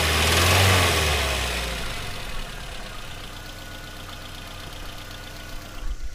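Car engine running with the ticking of a noisy valve lifter. It is loud for the first second or so, then falls away to a much quieter steady running about two seconds in. A few sharp knocks come just before the sound cuts off.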